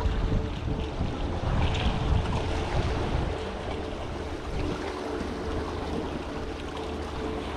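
Wind buffeting the microphone over the wash of sea water among rocks.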